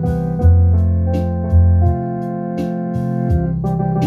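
Electronic home organ played with sustained chords over a bass line, the chords changing about once a second, with a steady percussion beat of about three hits a second.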